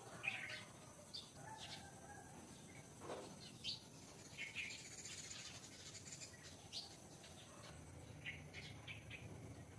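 Faint bird chirps: short, scattered calls, several in quick succession near the end, over low outdoor background noise.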